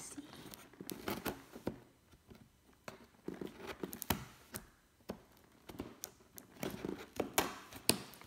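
Cardboard shipping box being cut open along its packing tape: scattered sharp clicks, scrapes and crinkles of tape and cardboard.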